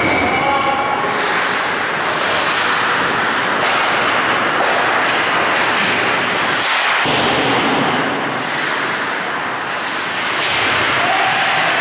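Ice hockey play in an echoing indoor rink: skate blades scraping the ice, sticks clacking and the puck knocking against sticks and boards, over a steady wash of rink noise.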